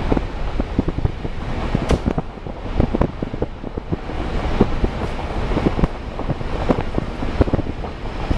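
A vehicle driving along an unpaved road: a low rumble with wind buffeting the microphone, and many small irregular pops and knocks from the tyres on the loose surface.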